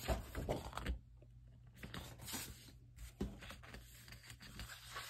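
Sheets of patterned scrapbook paper being flipped over and slid on a table, a dry rustle and scrape of stiff paper. It is loudest in the first second, then softer handling noises follow.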